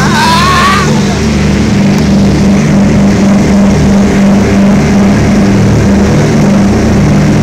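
Propeller airplane's engines droning loudly and steadily, heard from inside the cabin as the plane rolls along the runway. A man's excited shout rises over the drone in the first second.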